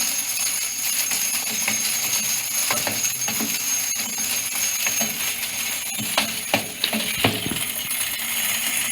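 Toaster oven's fan running with broken glass pieces caught inside it, rattling and tinkling without pause, with a few sharper clinks about six to seven seconds in.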